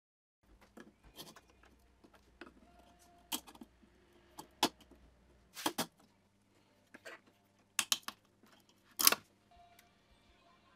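Scattered sharp clicks and clinks from hand tools and small plastic headlight parts being handled, about half a dozen of them, the loudest about nine seconds in.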